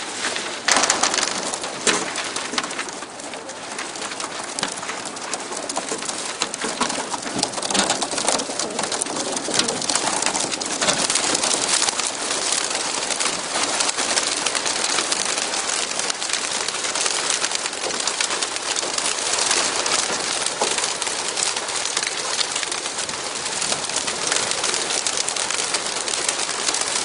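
A large flock of racing pigeons bursting out of a transporter truck's crates, hundreds of wings clattering together in a dense, steady flutter. A couple of louder knocks come about a second in.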